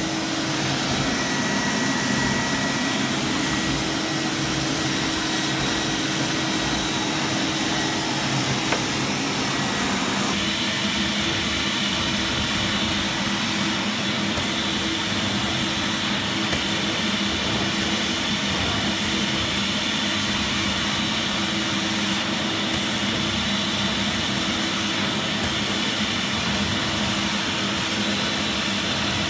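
A 2001 Zelmer Wodnik 619.5 water-filter vacuum cleaner running steadily while washing a carpet, drawing through its spray-extraction nozzle. Its tone changes about ten seconds in, then holds steady again.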